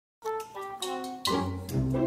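Instrumental background music starts abruptly after a brief moment of dead silence, with sustained notes over a low bass line.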